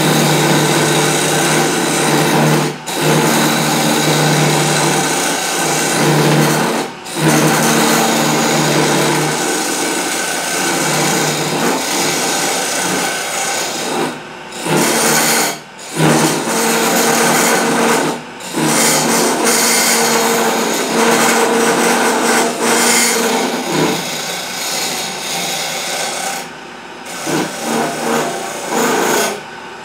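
Wood lathe spinning a wooden spindle while a hand turning chisel cuts into it: a loud, continuous scraping and shaving sound that stops briefly several times.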